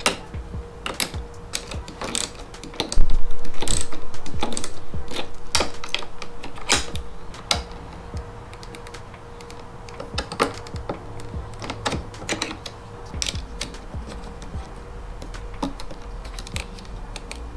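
Hand ratchet clicking and small tools tapping while the bolts of a carbon fiber side marker are tightened, with irregular sharp clicks throughout. About three seconds in comes a loud sudden clatter that fades over several seconds in a fast, even flutter.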